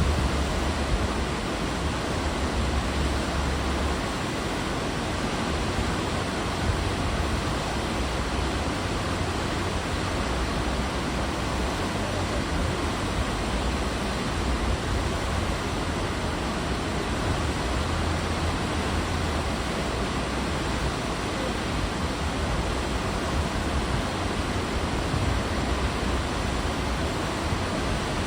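Sea water rushing along the side of a moving cruise ship: a steady hiss, with a low rumble that swells and fades.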